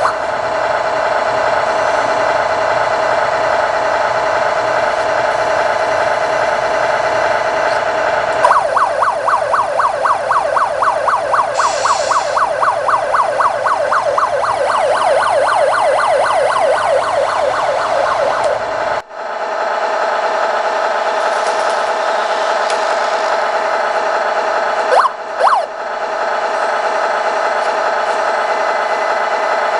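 Electronic police siren from a toy RC police car's siren module, playing steadily. About eight seconds in it switches to a fast pulsing yelp, then changes back to a steady pattern at about nineteen seconds, with two short blips near the end.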